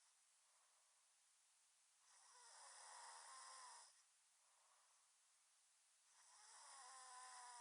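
A sleeper snoring, faint: two drawn-out snoring breaths about four seconds apart, each about two seconds long with a steady buzzing tone, and softer breaths in between.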